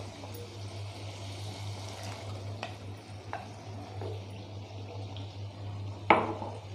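Wooden spatula stirring and scraping thick onion-tomato masala as it fries in a pan, with a faint sizzle and a few light clicks. About four seconds in, boiled kidney beans are tipped into the pan from a glass bowl. A sharp knock about six seconds in is the loudest sound, over a steady low hum.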